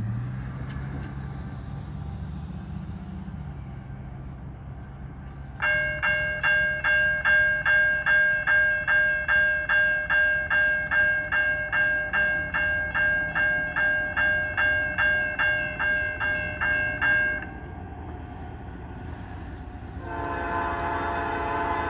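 A pickup truck's engine pulls away over the crossing at the start. About six seconds in, the grade-crossing warning bell begins ringing, struck about twice a second for roughly twelve seconds, then stops. Near the end the approaching freight train's locomotive horn sounds, steady and multi-toned.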